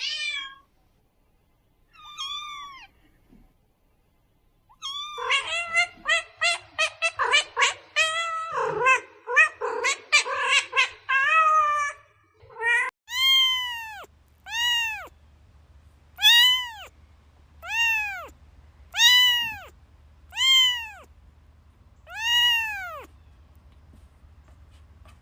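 Cat meowing: two single meows, then a dense run of quick overlapping meows from about five to twelve seconds in, then a string of loud, evenly spaced meows about every second and a half, each rising and falling in pitch.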